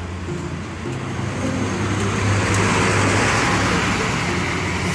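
A Mercedes-Benz intercity coach drives past at close range. Its engine and tyre noise swells as it goes by, loudest about two to four seconds in.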